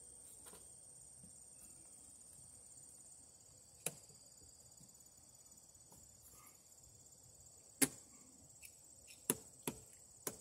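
A few sharp plastic clicks and knocks as an outdoor weatherproof outlet cover is handled and fitted onto its box with a screwdriver, the loudest about eight seconds in and several close together near the end. Underneath, insects chirp in a steady, high-pitched drone.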